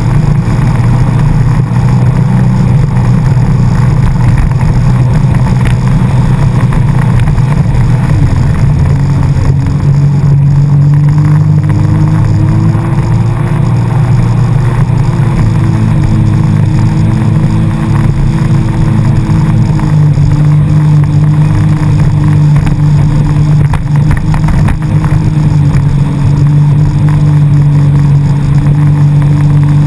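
Jet ski engine running loudly and steadily under way, its pitch rising a little about nine seconds in and easing off again as the throttle changes.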